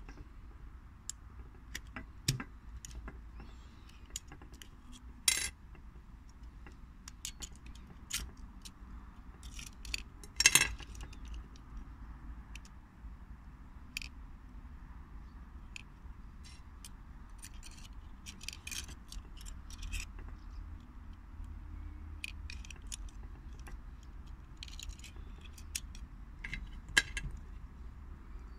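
Small metallic clicks, clinks and scrapes of a 1960s–70s Soviet pocket lighter being handled and taken apart, its metal case and insert knocking and sliding against each other. The clicks come at irregular intervals, with the loudest clinks about five seconds and ten seconds in, over a low steady background rumble.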